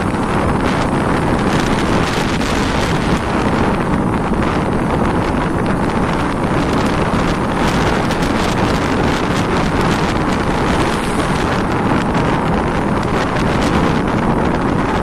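Steady wind rushing over the microphone of a camera on the move along a road, with a vehicle's running noise mixed in.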